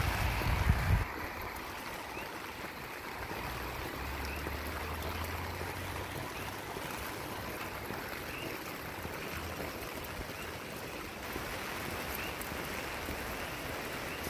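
Steady rain with water running and trickling on a wet road. A low rumble in the first second cuts off suddenly about a second in.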